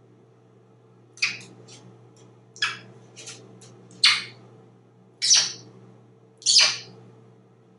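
African grey parrot giving short, sharp, unpitched squawks: five strong ones about a second and a quarter apart, with a few softer ones in between.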